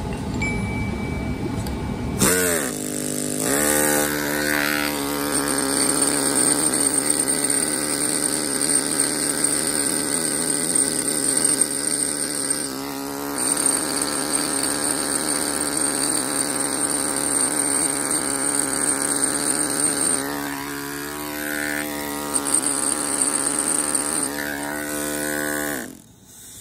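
Pneumatic hand machine (air hammer) driving a carbide star chisel against granite, pecking the surface to mimic an axed finish. A fast, steady hammering chatter starts about two seconds in, rising in pitch as it comes up to speed, breaks briefly about halfway, changes speed a few times later on, and cuts off shortly before the end.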